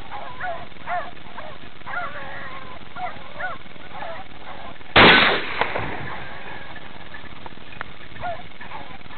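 Pack of beagles baying in repeated short calls on a rabbit's trail; about five seconds in, a single loud shotgun shot cuts across them and dies away within half a second, and the baying carries on more faintly near the end.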